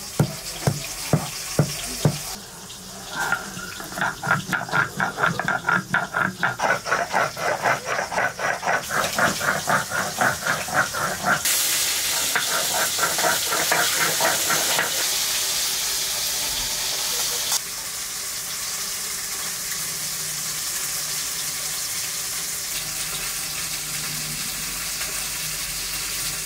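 Stone roller worked back and forth on a flat grinding stone (shil-nora), grinding wet turmeric paste in a fast steady rhythm of gritty strokes. About eleven seconds in this gives way to the hiss of turmeric-coated pieces frying in oil in a wok, which falls to a quieter steady hiss a few seconds later.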